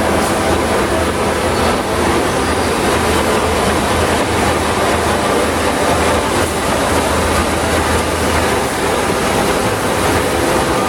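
Oxy-fuel cutting torch on a CNC pantograph running steadily through 5-inch-thick steel, a loud continuous rushing hiss with a low hum underneath.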